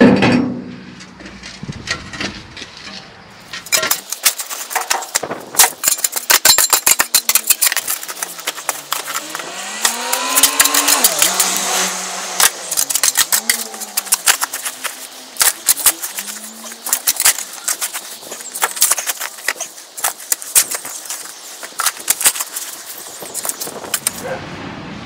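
Steel spade digging into stony garden soil and tipping it into a wheelbarrow: a thump at the start, then a long run of sharp scrapes and clicks. Partway through, a low tone wavers up and down.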